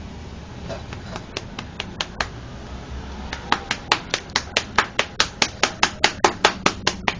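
Sharp clicks: a few scattered ones at first, then a steady run of about five a second for the last few seconds.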